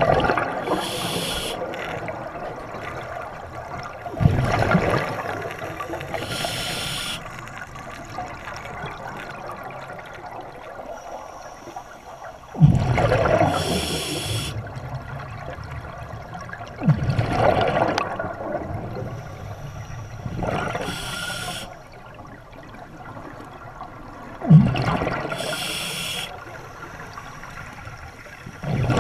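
Scuba diver breathing underwater through a regulator: hissing inhalations alternate with rumbling bursts of exhaled bubbles, about five breath cycles spaced several seconds apart.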